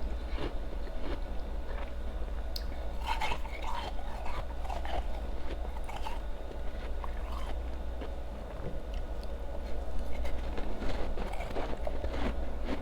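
Ice being bitten and chewed close to the microphone: irregular crisp crunches of powdery, refrozen ice, over a steady low hum.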